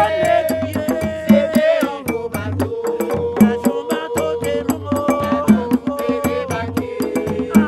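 Haitian vodou roots music played live: hand drums beating a steady pattern of low strokes, sharp percussion ticks keeping time above them, and voices holding long sung notes.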